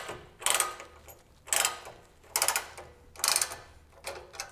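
Ratchet wrench tightening lock nuts, clicking in five short bursts about once a second.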